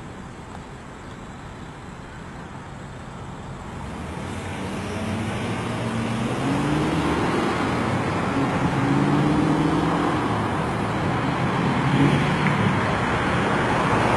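Road traffic: car engine and tyre noise that grows louder about four seconds in, with an engine's pitch rising and stepping.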